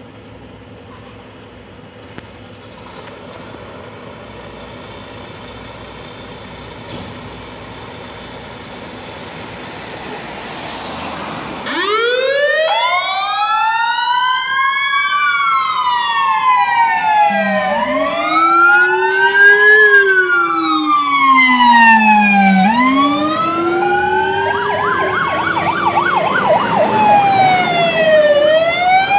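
Fire engines' diesel engines running with a low hum that grows louder, then about twelve seconds in their sirens switch on: several wailing two-tone sweeps rising and falling out of step with each other, one lower in pitch than the rest, with a fast warble joining near the end.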